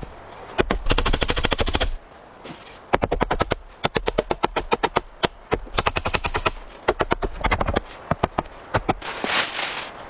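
Rapid knife chopping on a wooden board: runs of quick, evenly spaced strokes, about ten a second, stopping and starting several times, with a short scraping hiss near the end.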